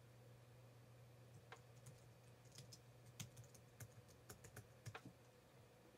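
Faint typing on a computer keyboard: a run of irregular keystrokes from about a second and a half in until about five seconds in, over a low steady hum.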